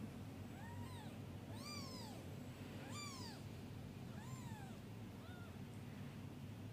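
Newborn kittens mewing: about five short, high-pitched mews, each rising then falling in pitch, roughly one a second, over a low steady hum.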